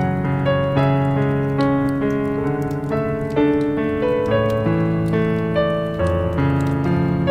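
Slow, gentle piano music, sustained notes and chords changing about every second, with faint scattered crackles of a fire mixed underneath.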